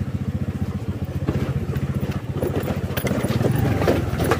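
Small scooter engine running under way with a fast, even pulse. From about a second in it is joined by clicks and rattles.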